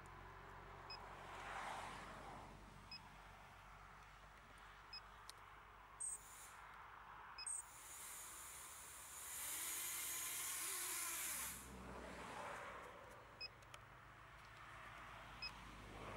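Small FPV quadcopter sitting armed on the ground with its propellers turning: a faint short high beep repeats about every two seconds, with a few seconds of hiss near the middle.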